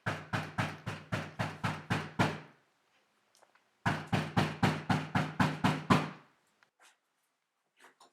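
Rapid knocking on a door in two bouts of about nine knocks each, roughly four a second, with a short pause between them.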